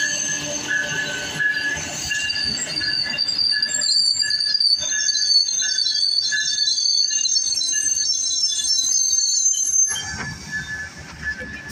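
Amtrak passenger train led by a Siemens Charger locomotive rolling slowly past as it arrives at a station, with a high metallic squeal in several steady tones over the rumble of the cars. The squeal drops away and the sound gets quieter about ten seconds in.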